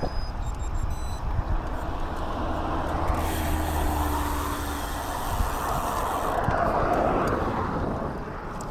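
A motor vehicle passing on the road, its engine hum and tyre noise swelling about three seconds in and fading away, with a second rise in road noise later on.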